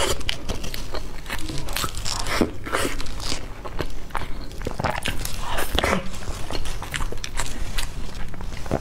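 Close-miked biting and chewing of a cup-shaped egg tart, with many short crisp crackles from the pastry.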